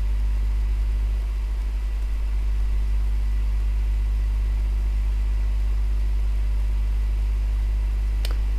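Steady low hum with a few faint steady tones above it, unchanging in level, and a single faint click near the end.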